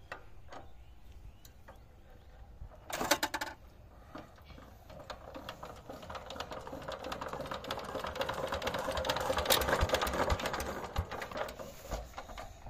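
Single-cylinder diesel power tiller engine being hand-cranked: a short burst of rapid clatter about three seconds in, then a rapid, even clatter that speeds up and grows louder for several seconds before falling away near the end.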